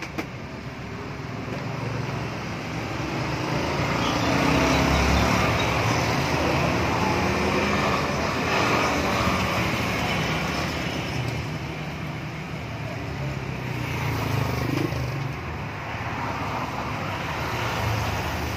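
Congested city road traffic: engines and tyres of slow-moving vehicles making a steady rush over a low hum. It grows louder a few seconds in and eases off again later.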